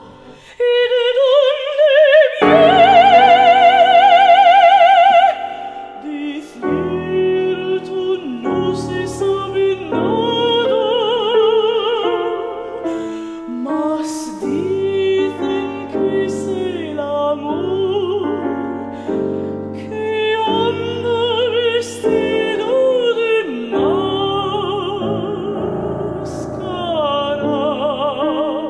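Mezzo-soprano singing with wide vibrato over piano accompaniment. About two seconds in she holds a loud high note, then goes on in shorter phrases over sustained piano chords.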